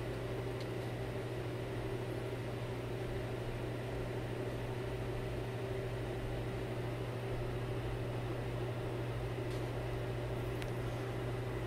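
A steady low machine hum with a hiss over it, unchanging throughout, with a couple of faint ticks near the end.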